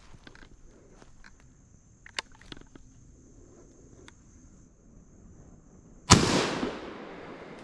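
A single shotgun shot about six seconds in, its report echoing away through the woods over about a second. Before it, a steady high insect drone and a few faint clicks, the drone stopping at the shot.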